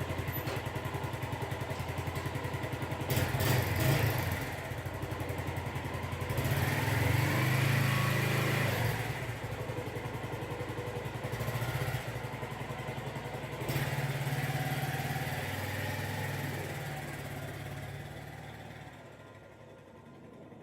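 Suzuki GZ250 motorcycle's single-cylinder engine running under way, swelling louder a few times, then growing fainter near the end.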